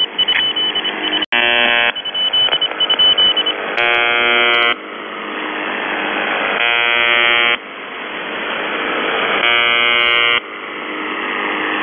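UVB-76 'The Buzzer' shortwave station on 4625 kHz heard through a radio receiver: four harsh buzz tones about a second long, one roughly every three seconds, the first about a second in, with shortwave static hissing between them that slowly swells. The buzz is the station's usual channel marker.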